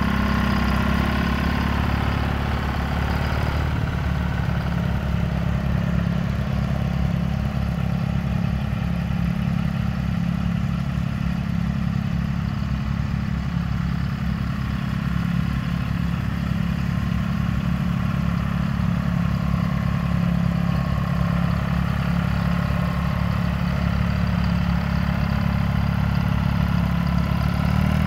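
John Deere 435 tractor's two-cylinder GM 2-53 two-stroke diesel engine running steadily at a low, even speed as the tractor drives slowly across the grass.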